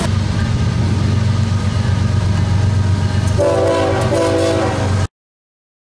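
CSX diesel freight locomotive approaching with its engine running as a steady low rumble. About three and a half seconds in, its multi-chime air horn sounds a short blast and then a longer one. The sound cuts off abruptly just after five seconds.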